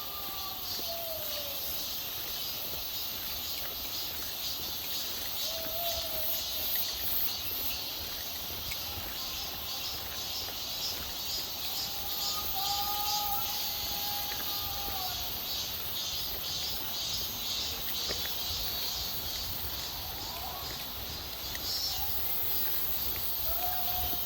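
Mountain stream running, a steady rush of water, with a voice faintly singing pansori in long, sliding held notes here and there.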